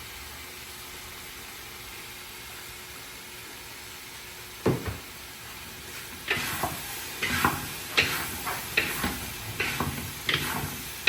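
Food sizzling steadily in a hot pan. About four and a half seconds in comes a single knock, then from about six seconds a utensil stirring and scraping against the pan in quick repeated strokes, about two a second.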